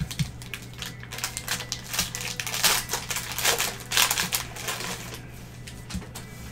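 Plastic wrapper of a trading-card cello pack crinkling and tearing as it is ripped open by gloved hands. The rustling comes in irregular bursts, loudest in the middle.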